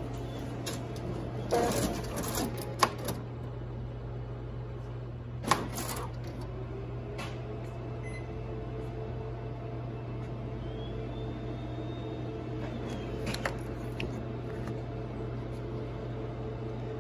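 Office colour printer running with a steady hum, with a few sharp mechanical clicks in the first three seconds and another about six seconds in.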